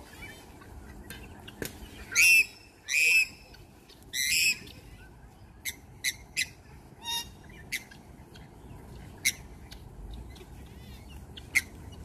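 Three loud, harsh squawks close together from birds in a flock being fed, followed by scattered short chirps and calls.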